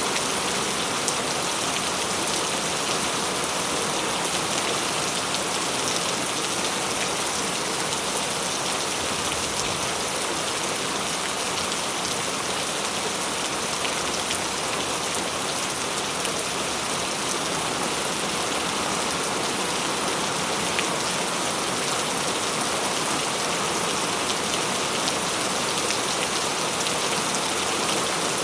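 Heavy rain falling steadily, a dense, even hiss of drops striking a surface with fine individual drop ticks.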